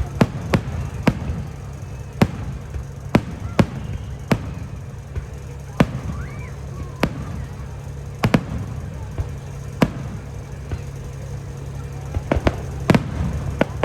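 Fireworks shells bursting, sharp bangs about once a second at uneven intervals, coming thicker near the end.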